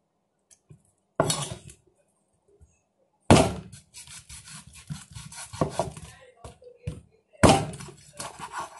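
A heavy kitchen knife hacking through raw chicken onto a wooden cutting board: three sharp strikes about one, three and seven seconds in. The middle strike is followed by a few seconds of quick sawing strokes through the joints.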